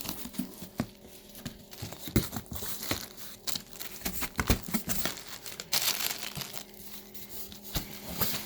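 Cardboard shipping box being opened by hand: flaps and packing scraping, crinkling and tearing in an irregular run of knocks and rustles, with a sharp knock at the start and a denser rustling stretch about six seconds in.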